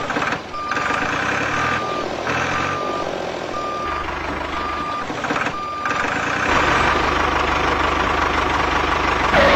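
Heavy vehicle's reversing alarm beeping about once a second over a running engine. About six seconds in the beeps stop and the engine runs on steadily, a little louder.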